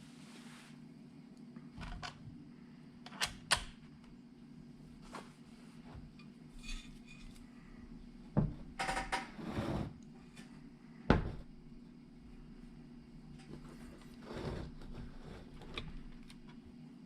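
Scattered clicks and knocks over a low steady hum: two sharp clicks about three seconds in, a cluster around nine seconds, and the loudest knock about eleven seconds in.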